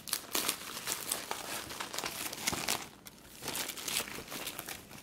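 Thin plastic wrapping crinkling and rustling as it is pulled open by hand, with a brief lull about three seconds in.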